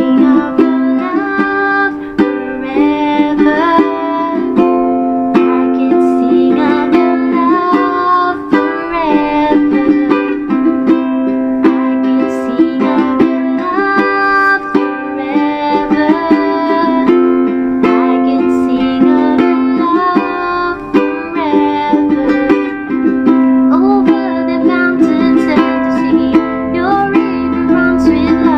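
All-mahogany D&D tenor ukulele playing a tune: a melody over chords that repeat in a pattern every few seconds.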